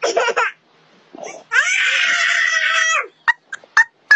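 A short, high-pitched vocal cry, then one long shrill scream lasting about a second and a half, then a few sharp clicks.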